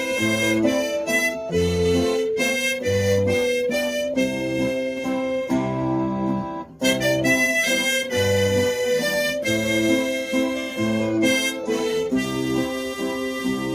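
Harmonica playing a melody in held notes over guitar accompaniment, with a low bass note on each beat. The music drops out for a moment about seven seconds in.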